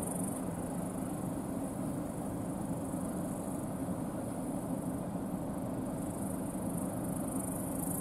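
New Holland CR10.90 twin-rotor combine harvester running steadily under load while harvesting barley, heard as a low, even rumble. A steady high chirring of insects from the field runs over it.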